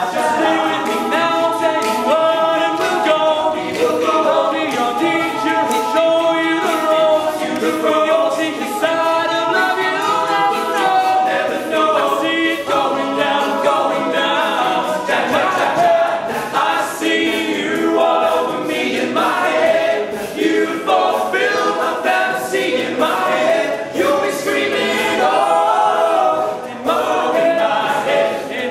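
All-male a cappella group singing a pop song live: a lead voice over close backing harmonies, with short crisp clicks keeping the beat.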